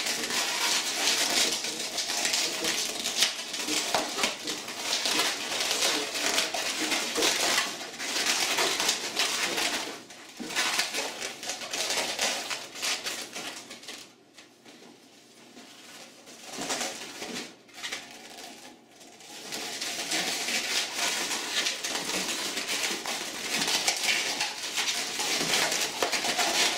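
Latex 260 modelling balloons squeaking and rubbing against each other as they are twisted and tied together by hand. The sound drops away for a few seconds a little past the middle, then the squeaking resumes.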